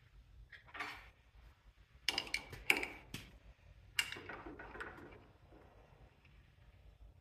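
Metal clinks and clatter from a hose fitting being handled and snugged with a wrench, several sharp clicks about two to three seconds in and another about four seconds in.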